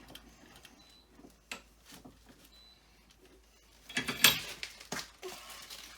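Plastic bag being handled as a rusty steel hinge is put into it: a sharp knock about a second and a half in, then a louder burst of bag crinkling and rustling about four seconds in.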